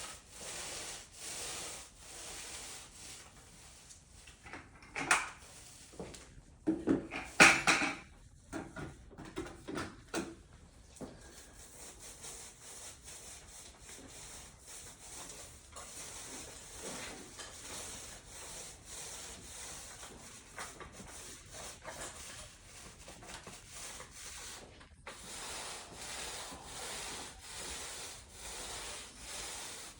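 Repeated rubbing strokes on a concrete slab, about one or two a second, from hand work on the floor surface. A cluster of louder scrapes and knocks comes about five to ten seconds in.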